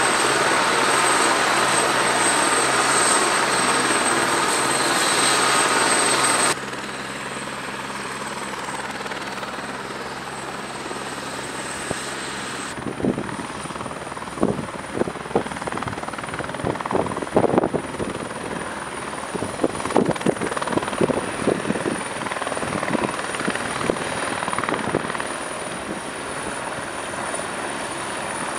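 Eurocopter AS-555 Fennec twin-turboshaft helicopter running with its rotor turning, a high turbine whine over the rotor noise, as it lifts into a hover. The sound drops suddenly about six seconds in and shifts again about thirteen seconds in. From then on irregular loud gusty thumps come and go over the steady running.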